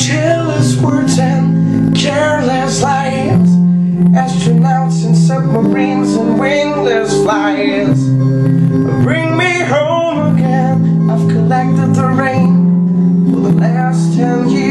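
A man singing a soulful pop-rock song in phrases over steady held accompaniment chords.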